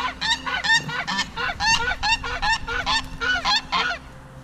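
Farmyard fowl calling loudly in a rapid run of repeated calls, about three a second, that stop abruptly about four seconds in.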